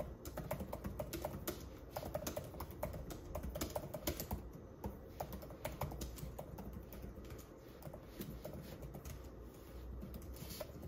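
Typing on the Logitech Folio Touch keyboard case: a quick, irregular run of soft key clicks from its responsive but mushy-feeling keys.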